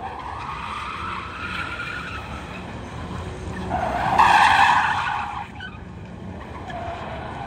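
A car's tyres squealing as it drifts. The screech swells loudest about four seconds in, then fades.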